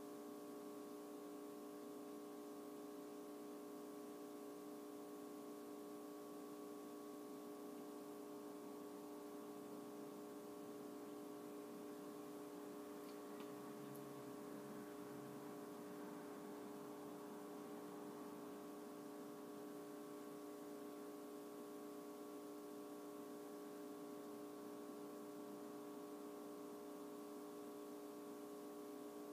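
Faint, steady electrical hum made of several fixed tones, unchanging throughout.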